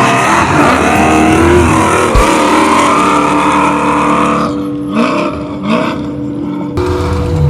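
Off-road race truck engine running hard, its pitch rising and falling with the throttle. Past the middle it drops back with two short rising revs, then the sound changes abruptly near the end.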